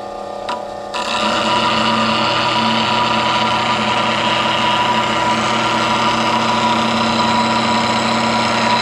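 Bench grinder running at low speed on a fine stone, with a lathe bowl gouge pressed against the wheel and rotated. Steady grinding begins about a second in over the motor's hum.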